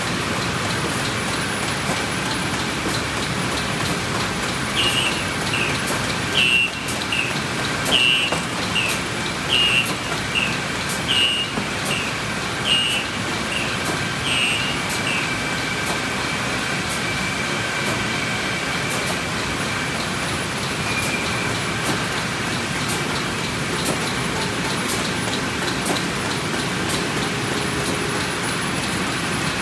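Packaging-line machinery (tray packer and shrink-wrap heat tunnel) running: a steady mechanical din with faint regular clicking about once a second. From about five seconds in to about fifteen, a run of short high chirps, a little more than one a second and alternating higher and lower, stands out above it.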